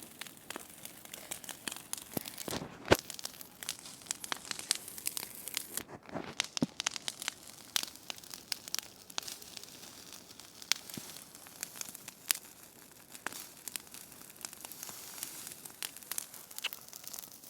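Wood bonfire crackling, with many short pops and snaps scattered throughout and one sharper pop about three seconds in.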